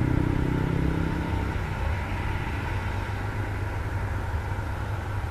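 Hitachi hydraulic excavator's diesel engine running as the boom and bucket move. About two seconds in it eases off to a quieter, steady run.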